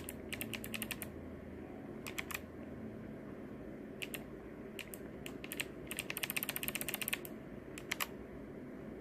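Low-profile mechanical keyboard keys clicking as they are typed, in short irregular bursts of a few keystrokes, with a fast run of rapid keystrokes about six seconds in.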